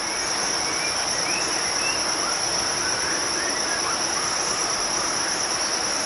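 Steady high-pitched chorus of chirring insects, such as crickets or cicadas, over a constant hiss, with a few faint short chirps now and then.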